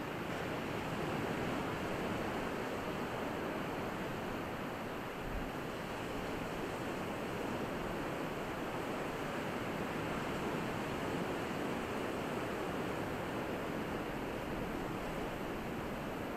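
Steady wash of surf on a beach, with some wind on the microphone.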